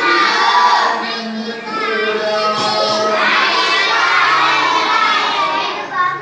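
A roomful of children chanting together in unison, in loud phrases with short breaks between them.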